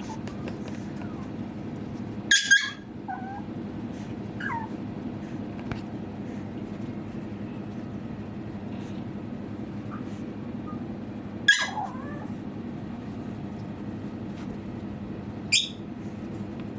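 Pomeranian puppy giving short, high-pitched yips: a quick pair a couple of seconds in, one more about two-thirds through and another near the end. Fainter whimpers come in between, over a steady low hum.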